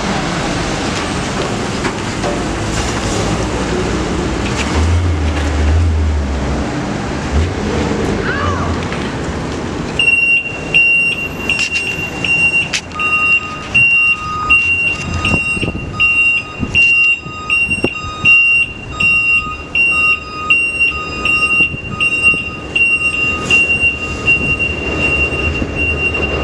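Street traffic and a truck engine running. About ten seconds in, the backup alarms of the reversing Ford F-550 fire rescue trucks start beeping: a high beeper about twice a second, joined a few seconds later by a second, lower beeper pulsing a little more slowly.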